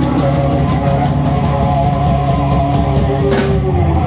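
Live band playing: electric guitar, bass guitar, drum kit and keyboard together.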